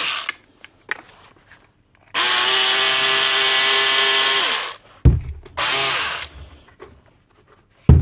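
Hilti SDS drill motor running at a steady pitch for about two and a half seconds and then winding down, followed by a sharp thump. It then runs again in a short burst of under a second, with another thump near the end.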